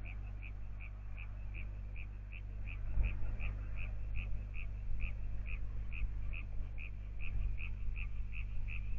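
A small animal calling in an even series of short, high notes, about two or three a second, over a steady low hum.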